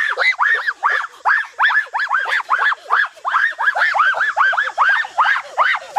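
An animal calling over and over: short high calls that each rise and fall in pitch, about three or four a second, without a break.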